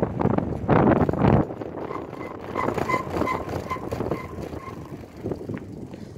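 Wind rumbling on the microphone, cutting off suddenly about a second and a half in. Then a run of about eight short, high pips, roughly three a second, for two to three seconds.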